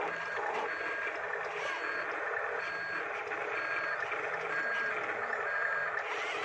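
Toy RC dump truck's reversing beeper sounding short electronic beeps about once a second as the truck backs up, over a steady motor whirr.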